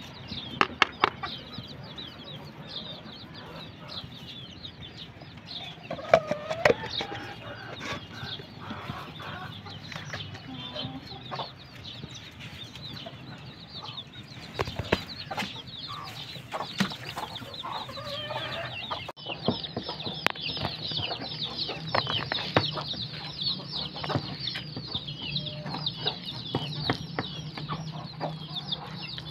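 Chickens clucking, with many short high chirps and scattered light knocks and clicks throughout.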